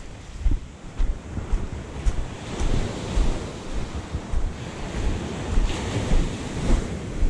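Sea waves washing in, swelling up twice, with wind buffeting and rumbling on the microphone.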